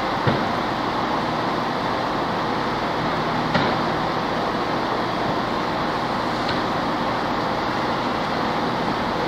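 British Rail Class 158 diesel multiple unit running slowly into the platform, its underfloor diesel engines rumbling under a steady hiss of rain. Two sharp knocks come near the start and about three and a half seconds in.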